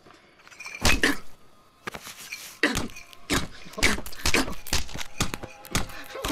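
Film sound effects of a man being beaten in the face: one heavy blow about a second in, then a fast run of repeated blunt blows, about two a second.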